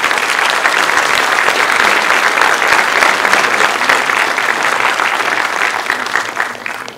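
Audience applauding, a dense patter of many hands clapping that tapers and stops just before the end.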